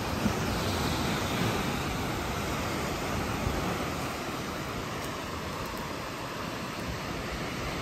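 Caribbean surf breaking on a sandy beach: a steady rush of waves.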